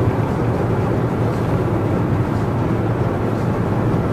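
Steady in-cabin drone of a car driving along a road: low road and engine noise, even throughout.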